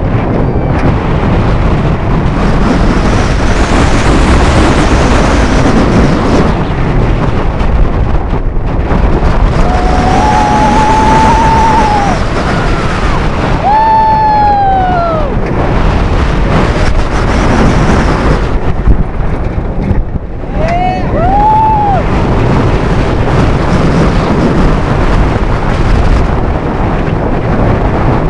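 Wind rushing over the microphone and the rumble of the Nitro roller coaster train during the ride. Riders scream several times: a long scream about ten seconds in, another around fourteen seconds, and two short ones about twenty-one seconds in.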